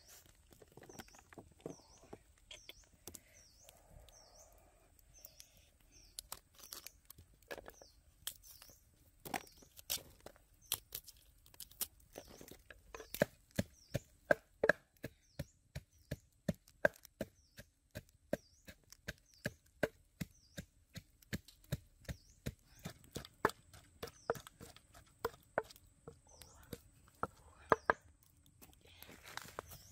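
Repeated chopping strikes, sharp and irregular at roughly two a second, getting going about eight seconds in. During the first few seconds a bird repeats a short high chirp.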